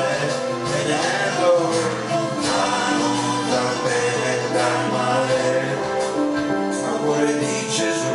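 Live keyboard music from a Roland E-86 arranger keyboard and a second keyboard, with a man singing an Italian pop song over it into a microphone.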